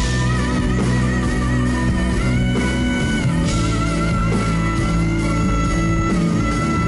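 Live band music played loud over a concert sound system: a guitar holds long notes with vibrato over a steady bass.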